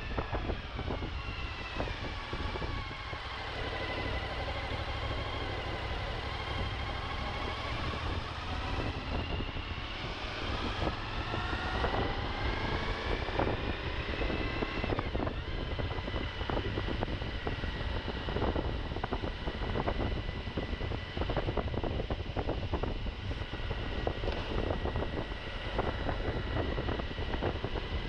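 Suzuki V-Strom motorcycle engine under way off-road, with wind noise on the microphone and many short knocks and rattles from the rough ground. The engine note falls over the first few seconds, climbs steadily from about ten seconds in, drops sharply about halfway through, then holds steady.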